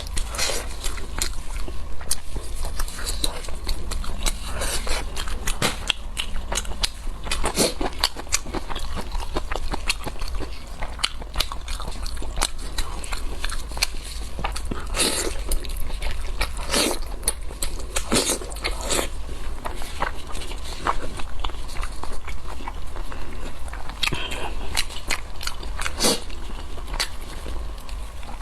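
Close-up eating of spiced sheep's head: chewing and biting with many irregular sharp, clicky mouth noises, some louder ones scattered through. A steady low hum runs underneath.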